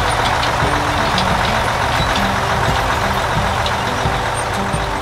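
Combine harvester's engine and machinery running steadily as it cuts a crop.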